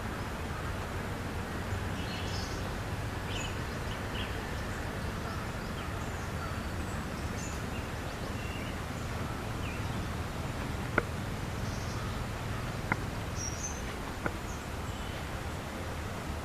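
Outdoor ambience: a steady low rumble of background noise with scattered short bird chirps. Three sharp clicks fall near the end, a second or two apart.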